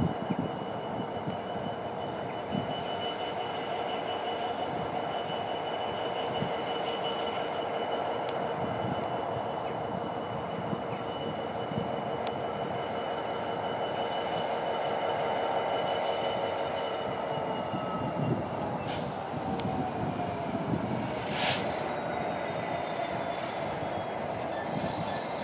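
A Class 66 diesel locomotive hauling a Class 803 unit slowly round a tight curve, its wheels squealing on the rails with several steady high tones that slide downward near the end, over a low rumble. Two brief sharp noises come near the end.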